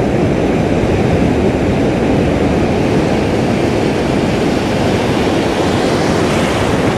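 Ocean surf washing in around the angler, a steady low rushing noise.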